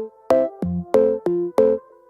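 Background electronic music: short synthesizer chords struck in a steady rhythm over a bass line.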